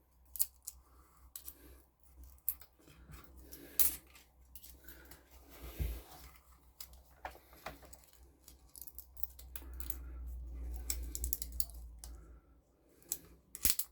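Small metal clicks and scrapes of hand tools and a feeler gauge working at the valve rocker of a Makita BHX2500 leaf blower's four-stroke engine while the valve clearance is set, with a low rumble in the second half.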